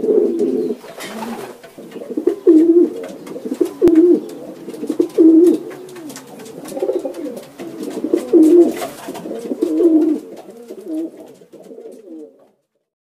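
Domestic pigeons cooing: a run of low, rolling coos, roughly one every one and a half seconds, dying away near the end.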